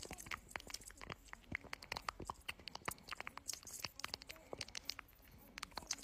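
A praying mantis chewing through a grasshopper, heard as a quick, irregular string of crisp crunching clicks from its jaws biting through the insect's shell.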